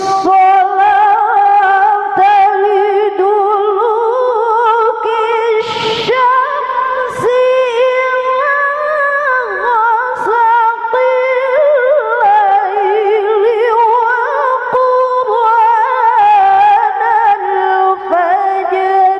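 A woman reciting the Qur'an in melodic tilawah style, amplified through a handheld microphone: long, high held notes with fast vibrato and ornamented melodic turns, in one continuous line.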